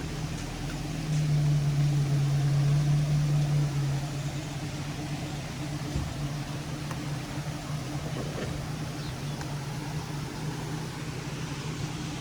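A motor running steadily with a low hum, a little louder in the first few seconds, over an even hiss.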